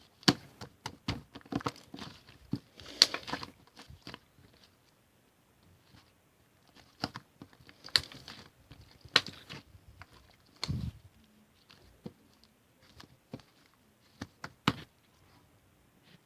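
Irregular close clicks, taps and crinkling, bunched in the first few seconds and then sparser, with a few sharper snaps.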